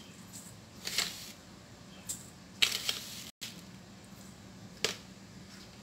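Metal tablespoon clinking and tapping against a stainless steel mixing bowl as granulated sugar is spooned in: a handful of light, separate clinks a second or so apart, with a short cluster about halfway through.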